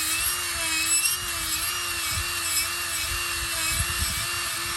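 Milwaukee die grinder with a burr bit running steadily, grinding down the bars of a horse's hoof; its whine wavers slightly in pitch as the bit bites into the hoof horn.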